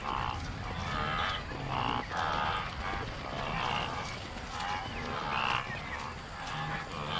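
A herd of wildebeest calling, one call after another about once a second, with calls from several animals overlapping.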